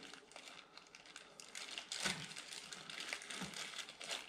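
Packaging rustling and crinkling, with scattered light clicks, as a new universal joint is taken out of its box by hand.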